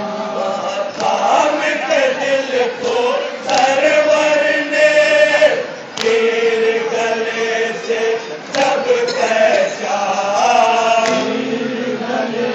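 A man's voice chanting into a handheld microphone, drawing out long held notes in phrases of a few seconds with short breaks between them.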